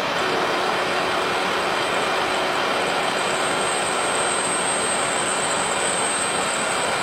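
Metal lathe running, its chuck spinning a tube while the cutting tool turns it, a steady mechanical noise with a faint high whine that grows stronger about halfway through.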